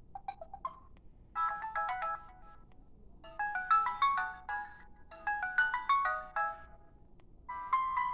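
Preloaded ringtone on a Samsung SCH-r270 phone playing through its speaker: a melody of quick notes in short phrases, repeated about every two seconds. Near the end a different ringtone with longer held notes begins.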